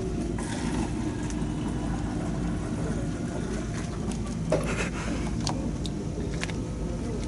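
A steady low hum, with a few short light clicks from thin plastic cups and a marker being handled and set down.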